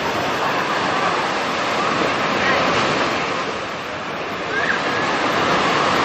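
Sea surf: small waves breaking and washing up the beach in a steady rush that swells and eases. Faint voices of beachgoers come through it, most clearly near the end.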